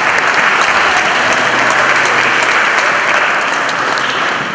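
Audience applauding, a dense, steady clapping that begins to fade near the end.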